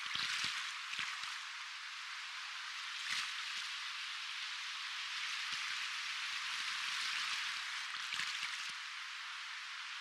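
Soft ocean waves washing and lapping: a steady hiss of moving water that swells gently, with a few brief splashes near the start, about three seconds in and about eight seconds in.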